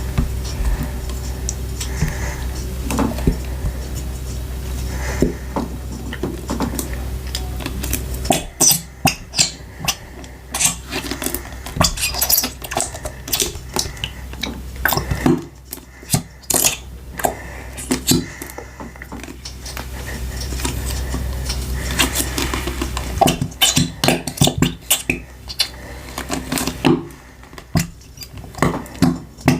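Slime or putty being worked, making irregular sharp sticky pops and clicks, thickest in two runs in the middle and near the end. A low steady hum lies under the quieter stretches.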